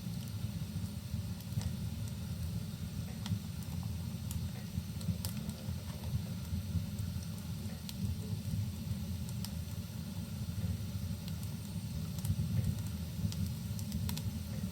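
Fire burning in a fireplace: a steady low rumble with sparse, sharp crackles scattered through it.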